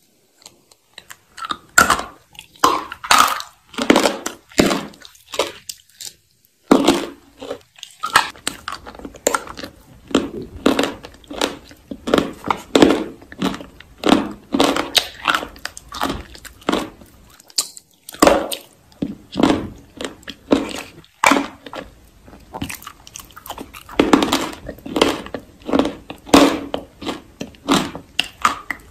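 Close-miked biting and chewing of a hard, crunchy piece of food: a dense run of sharp crunches, broken by short pauses about six seconds in and again near eighteen seconds.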